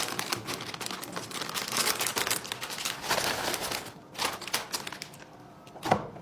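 Dense crinkling and crackling that thins out after about four seconds, with a few short bursts and a sharp snap near the end.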